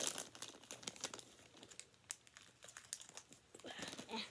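Small plastic snack wrappers crinkling as they are handled and opened, in quick irregular crackles.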